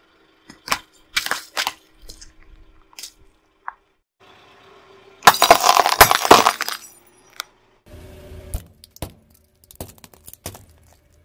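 Car tyre rolling over and crushing brittle objects: scattered short cracks and clinks, and about five seconds in a loud burst of shattering and crackling that lasts over a second as glassy pieces break under the tyre.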